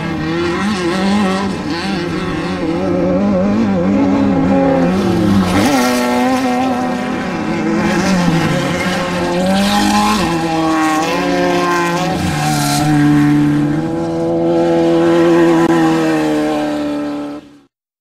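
Off-road race vehicle engines running and revving, their pitch wavering and gliding up and down, cutting off abruptly near the end.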